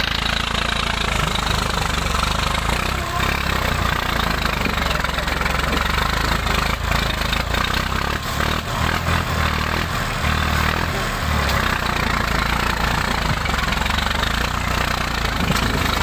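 Farm tractor's diesel engine running steadily under load while it drags a trolley over rough rock.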